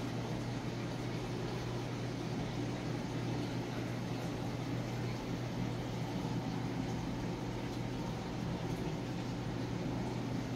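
Steady low mechanical hum under an even hiss.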